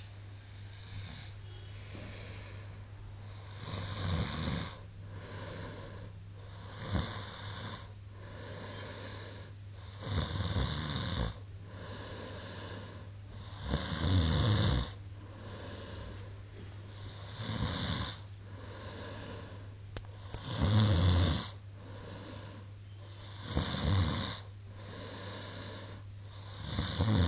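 A sleeping man snoring loudly, about eight snores in all, one every three to four seconds, over a steady low hum.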